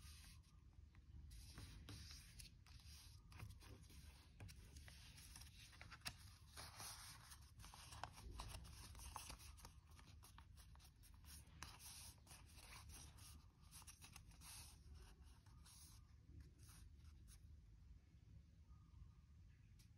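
Faint rustling and rubbing of folded origami paper as fingers press its creases flat and handle the finished paper plane, with scattered soft ticks; it dies down near the end.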